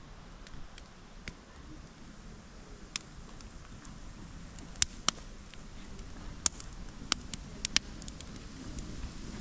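Faint low rumble with about a dozen scattered, sharp clicks at irregular intervals.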